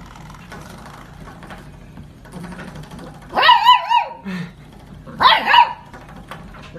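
A dog calling out twice in high-pitched, wavering yelps, the first about three seconds in and the second about two seconds later.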